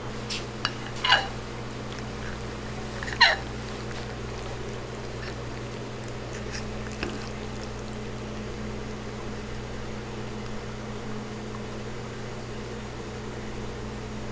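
Steady hum of kitchen equipment, with two short sharp sounds about one and three seconds in.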